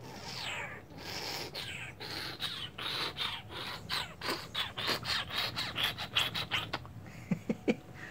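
A cat licking, a run of quick rasping strokes that come faster and faster, with three short low blips near the end.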